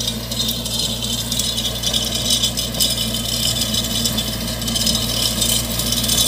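VST Branson 5205 tractor's diesel engine running steadily under load while its rotavator churns dry soil, with a continuous metallic rattle over the engine.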